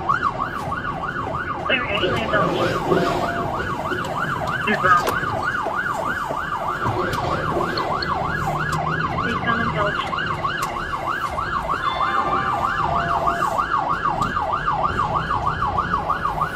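Police car siren in a fast yelp, its pitch rising and falling about three times a second, heard from inside the pursuing cruiser over low engine and road noise.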